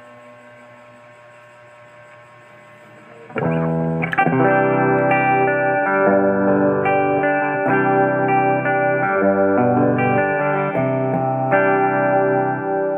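Maison Les Paul-style electric guitar played through a Marshall MG15 practice amp. After about three and a half seconds of a faint fading note and amp hum, it starts playing a steady run of picked chords and notes.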